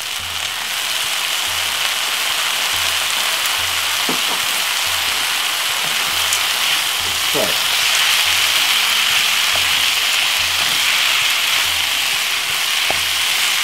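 Rice and vegetables sizzling steadily in a hot nonstick frying pan just after soy sauce is poured in, the sizzle growing a little louder about a second in, while a wooden spoon stirs and tosses the mixture.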